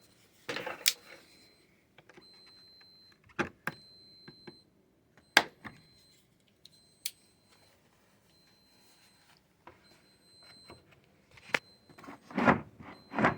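Hard plastic socket-set case being handled: scattered sharp clicks, knocks and rattles, with two louder knocks near the end.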